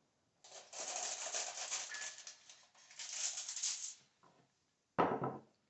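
Aluminium foil being peeled off a glass bowl and crumpled, a crinkling rustle lasting about three and a half seconds. A brief, louder sound follows about five seconds in.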